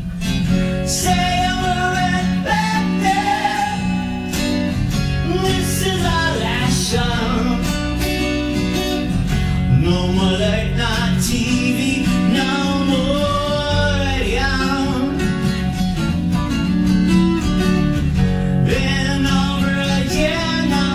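Music: a cutaway acoustic guitar played steadily while a man sings along into the microphone.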